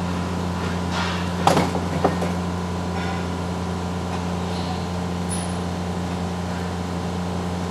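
Steady low mechanical hum of background machinery, with two short sharp clicks about a second and a half and two seconds in.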